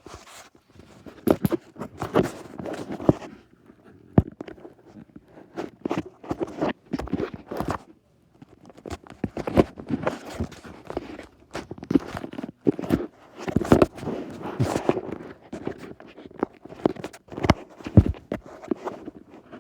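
Handling noise from a phone being fitted onto a stand: irregular bumps, taps and rustling close to the microphone, with short pauses.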